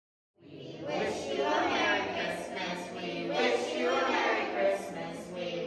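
A choir singing together, starting suddenly about half a second in after silence.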